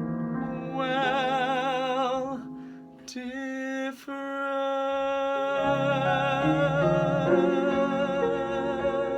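The end of a song: a singer holds a note with wide vibrato, then after a brief break a long final note is held over piano and orchestral accompaniment.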